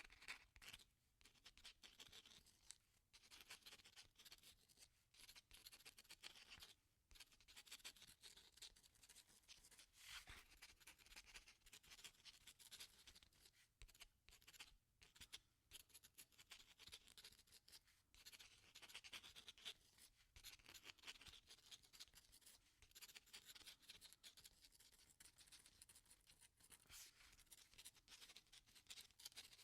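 Pen writing: faint, quick scratching strokes that run on with brief pauses every few seconds.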